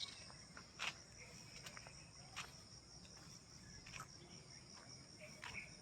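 Faint, steady, high-pitched insect chirring, with a few soft clicks about every second and a half.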